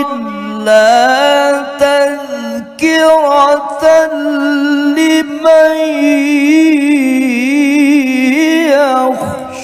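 A male qari reciting the Quran in the drawn-out melodic style of Quran recitation, amplified through a hand-held microphone. He holds long ornamented notes, with the pitch climbing and wavering, and the phrase falls away near the end.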